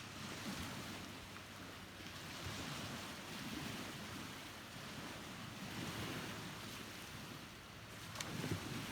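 Sea waves washing, with wind blowing on the microphone, and one brief knock about eight seconds in.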